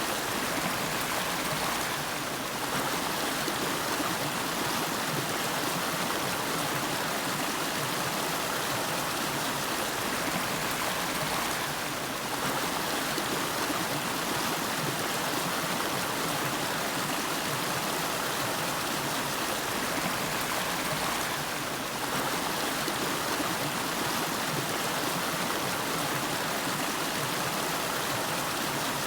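River water flowing, a steady, even rushing of a shallow stream.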